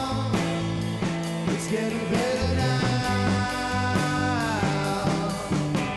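Live rock band: a male vocalist singing into a microphone over electric bass and electric guitar.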